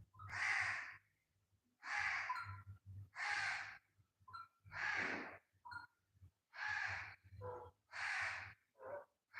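Pet parrot giving a run of harsh, raspy squawks, about one every second and a half, with a few shorter calls near the end.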